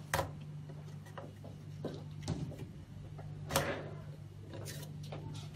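Handling knocks and clicks of plastic parts, three sharp ones (just after the start, a bit past two seconds and past three and a half seconds) and lighter taps between, over a steady low hum.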